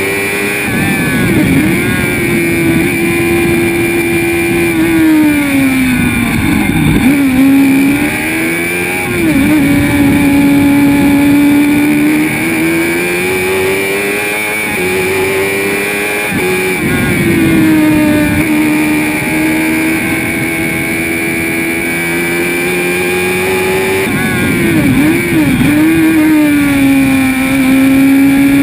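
Spire GT3 sports racing car's engine heard from on board at race speed: a loud, high, steady note that swoops down several times with quick blips as the driver brakes and downshifts for corners, then climbs again under acceleration.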